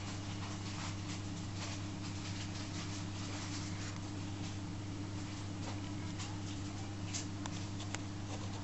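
Cats scrabbling at a glossy enamel bag: many short, light scratches and rustles of paws and claws on the bag's plastic, over a steady low hum.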